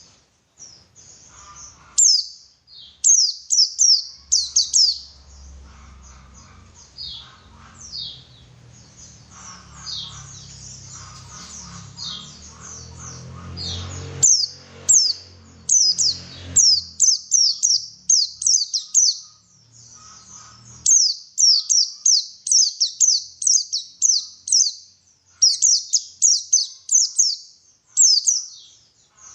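White-eye (pleci) singing a lively song of rapid, high, sharp chirps, each sweeping down in pitch, in quick runs with short pauses between. For a stretch in the middle a low rumble sits under the song.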